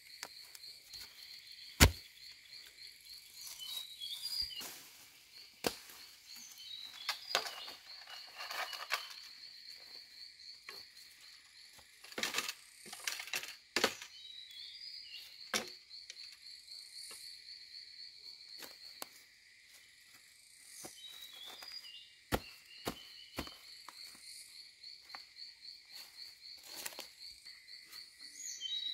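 Insects keep up a steady, fast-pulsing high trill. Sharp knocks and clacks of bamboo being handled break in now and then, the loudest about two seconds in and a cluster around twelve to fourteen seconds, with a few bird chirps.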